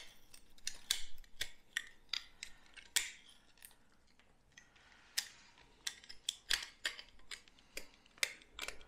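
Snap-off utility knife blade scraping cured expanding foam off the barrel of a Teflon-coated foam gun: irregular short scrapes and clicks, some of them sharp, with a quieter lull around the middle.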